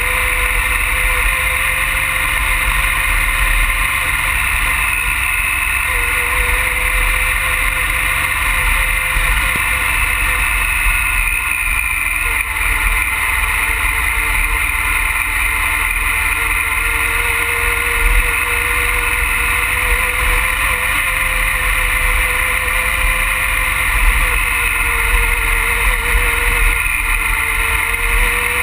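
Triumph Tiger Explorer's three-cylinder engine running steadily while riding, its pitch wavering a little as the throttle changes, under a constant low wind rumble on the microphone.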